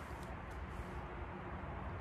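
A few faint clicks of a small knife trimming oyster mushrooms, over a low steady rumble.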